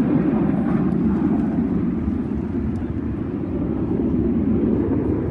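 Aircraft engine noise from an air show flypast: a loud, steady low noise with no clear pitch and no break.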